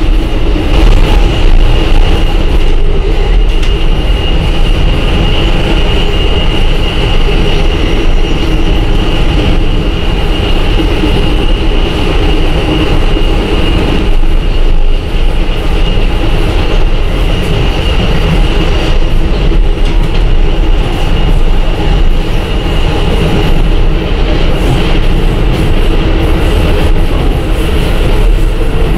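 Loud, steady rumble and rail noise of a moving Amtrak passenger train heard from inside the car, with a steady high-pitched whine over it.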